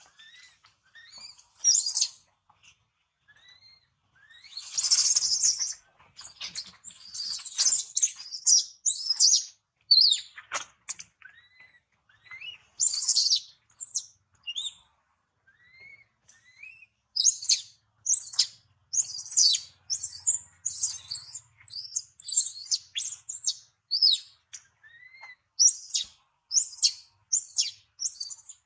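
Baby long-tailed macaque giving a long, irregular string of short, high-pitched squeals and screams: distress calls. About five seconds in there is a brief rustling scuffle.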